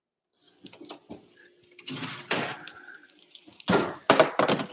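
Food sizzling in hot cookware, with a few clicks and clatters of pans being handled.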